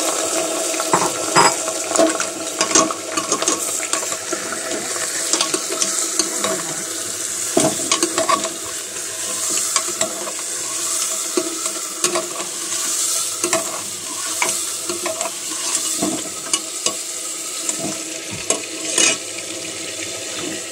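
Beef pieces sizzling as they fry in hot oil in a metal pressure cooker. A metal ladle stirs and scrapes them, with sharp knocks against the pot now and then.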